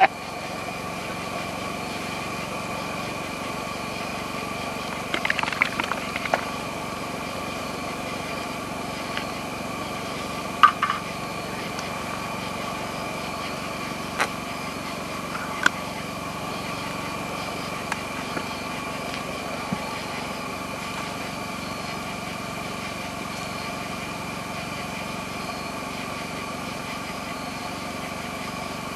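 A small engine running steadily with an even hum, with a few brief clicks and knocks about six, eleven and fifteen seconds in.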